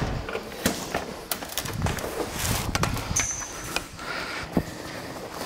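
Irregular knocks, scrapes and rustling of someone working their way through a cramped entrance, with a short high chirp about three seconds in.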